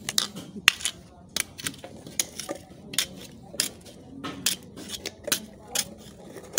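Sharp metallic clinks and taps, unevenly spaced at about one or two a second, from a long flat hand tool striking and scraping a rusty steel beam.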